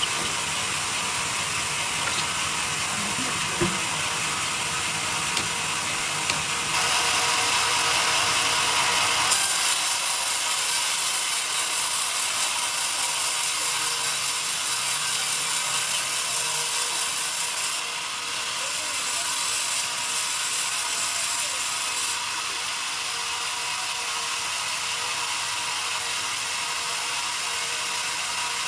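Large sawmill band saw running, its blade ripping lengthwise through a young pine log on the feed carriage. The cutting hiss gets louder about a quarter of the way in and drops back about three-quarters of the way through.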